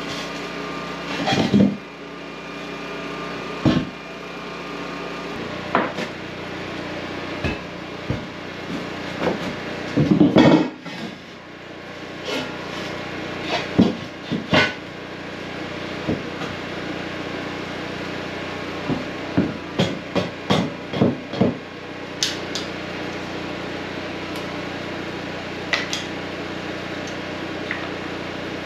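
Square steel tubing being handled and set down on a wooden plank floor: scattered knocks and clanks, a loud cluster about ten seconds in and a quick run of knocks about two-thirds of the way through, over a steady hum.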